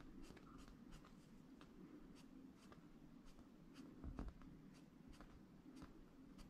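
Faint, short scratchy ticks of a small flat brush stroking acrylic paint onto canvas, about two to three a second, with one soft thump about four seconds in.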